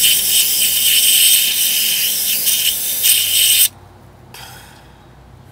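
Aerosol can of carburetor cleaner spraying in one long, steady hiss that cuts off sharply about three and a half seconds in. A brief, fainter spurt follows about half a second later. The cleaner is being sprayed into a NOx sensor's orifice to clear out remaining carbon.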